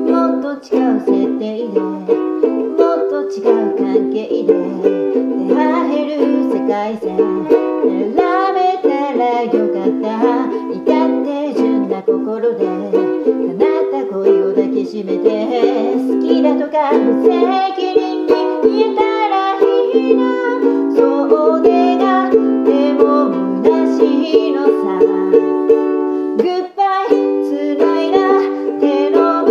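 Ukulele strummed in a quick, steady rhythm, with the chords changing as the song goes on.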